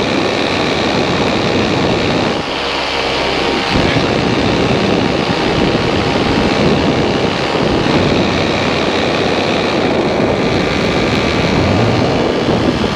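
Paramotor engine and propeller running steadily in flight, shortly after takeoff.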